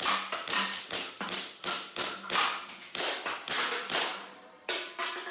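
Airsoft gun fired in a steady string of sharp snaps, about two and a half shots a second, with a short break near the end.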